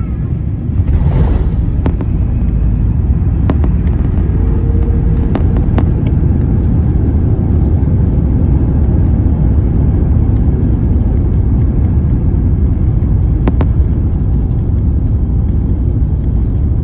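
Jet airliner rolling fast down the runway, heard inside the cabin as a loud, steady rumble of engines and wheels. The wing spoilers are raised, as in a landing rollout. There is a brief rush of noise about a second in and a few sharp clicks or rattles.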